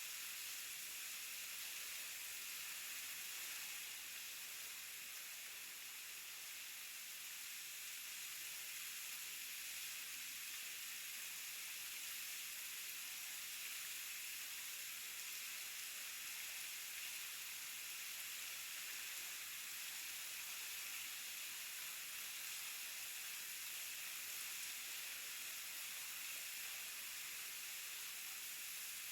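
Waterfall: a steady, even rush of falling water, mostly a high hiss with little low rumble, unchanging throughout.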